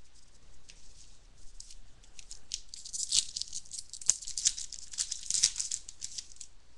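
Crinkling and rustling of a foil trading-card pack wrapper being opened and handled: a dense run of high, crisp crackles, loudest in the middle seconds, with one sharp snap about four seconds in.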